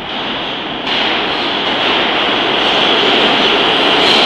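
New York City subway train coming into the station and running past the platform. The rumble and rail noise get louder as it comes in, with a sudden jump in loudness about a second in.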